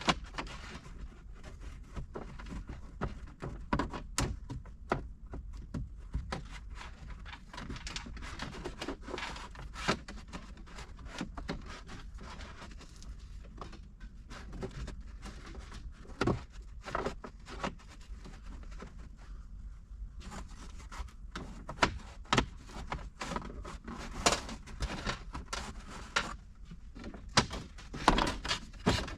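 Irregular clicks, knocks and scraping of a wire fish being worked in and out along the headliner channel and against the interior plastic trim of the vehicle roof.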